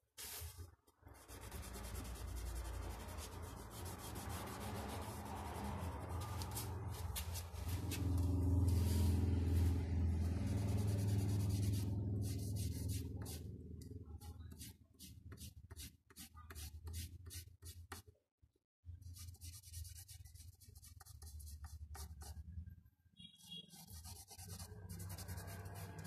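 Pastel stick and fingertips scratching and rubbing on drawing paper in many short strokes, blending the colour. Around the middle a loud low rumble of the sheet and board being handled joins in, and the strokes stop briefly about two thirds through.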